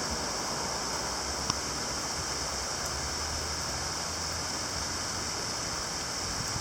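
Steady hiss of a moderate to heavy rain shower pouring down, with one sharp tick about one and a half seconds in.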